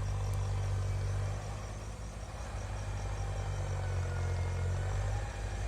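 Steady low engine drone that dips slightly and then swells again.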